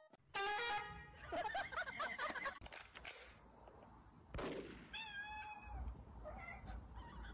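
A cat meowing and yowling in wavering calls for the first couple of seconds. A short sharp sound comes about four seconds in, and another brief, falling meow follows just after it.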